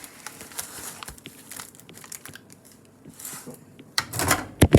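Paper microwave popcorn bag crinkling as it is handled, with a louder burst of rustling and a sharp knock near the end.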